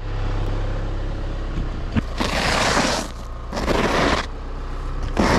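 A snow brush sweeping snow off a vehicle's hood in three long strokes, each just under a second, over the steady low hum of an idling engine.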